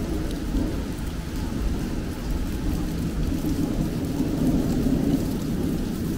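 Steady rain with a low rumble underneath, swelling a little about four to five seconds in.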